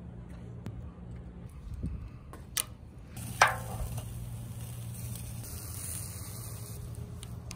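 A sharp knock with a short ring that falls in pitch, about three and a half seconds in, over a low steady hum and hiss.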